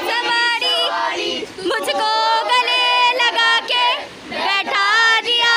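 A high-pitched voice singing a melody in held notes that slide up and down in pitch.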